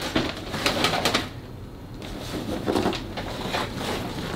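Plastic packaging crinkling and rustling as it is handled, with irregular crackles and small clicks.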